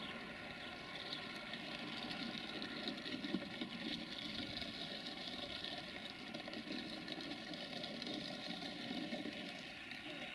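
An LDE2100 (060-DA) diesel-electric locomotive's Sulzer diesel engine, heard from a distance as it hauls a freight train slowly through the yard. It is a steady running hum with a faint held whine.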